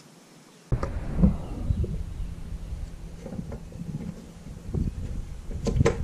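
Scattered small clicks and knocks of a Land Rover Perentie sliding-window catch being fitted and worked on the door's sliding window, over a low rumble, with a sharper click near the end. The first moment is near silent.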